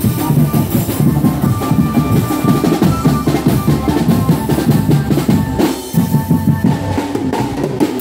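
Live drum band playing a fast, dense beat on bass drum and snare-type marching drums, easing briefly about six seconds in.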